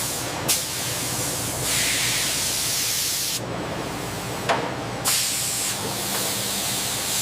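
Loud, steady hissing like a spray or jet of air or fluid, whose tone shifts abruptly several times.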